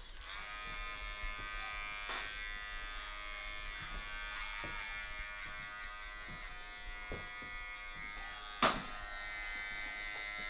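Cordless hair clippers running with a steady electric buzz, starting up right at the beginning. One sharp knock late on.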